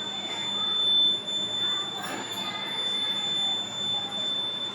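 Buzzer of an Arduino rain detector alarm sounding one steady high-pitched tone, then cutting off at the end. The tone means the rain sensor has detected water on its plate. Faint voices are in the background.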